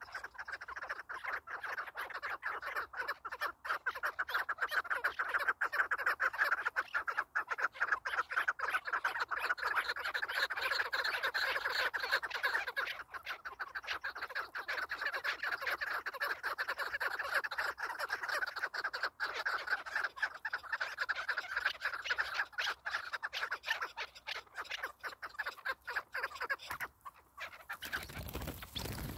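A flock of chukar partridges calling in a rapid, continuous cackling chorus. Near the end the calling stops and the flock flushes in a short burst of whirring wings.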